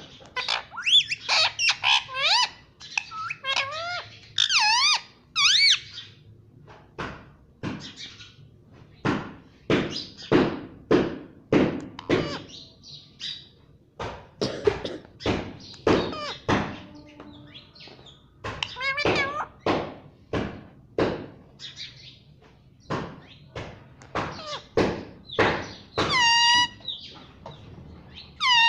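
Pet parrot making squeaky, warbling whistle calls, then a long run of irregular sharp clicks and knocks, one or two a second, with a couple of falling squawk-like calls near the end.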